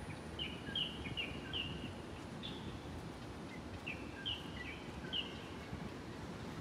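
A songbird calling: strings of short, high chirps in quick little groups, over a steady low rumble of outdoor background noise.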